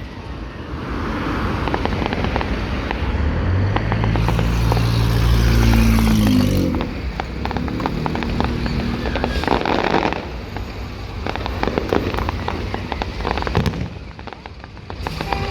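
Fireworks display with rapid crackling and popping and scattered bangs. A loud low hum with steady overtones rises about four seconds in and falls away about six and a half seconds in.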